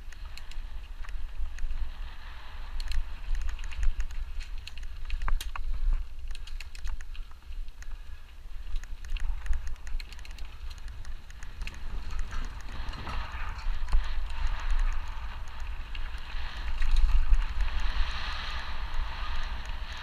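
Mountain bike rolling over a dirt trail: a steady hiss of tyres on dirt and gravel, louder in the second half, with scattered clicks and rattles from the bike over bumps. A low rumble of wind buffets the bike-mounted camera's microphone throughout.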